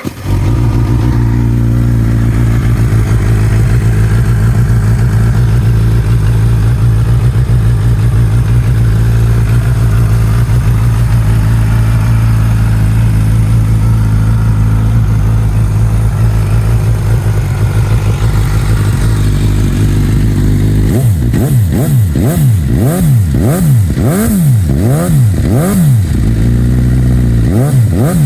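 2016 Suzuki GSX-S1000's inline-four engine with a Yoshimura exhaust silencer starts and idles steadily. About three-quarters of the way through, the throttle is blipped repeatedly, the revs rising and falling about once a second.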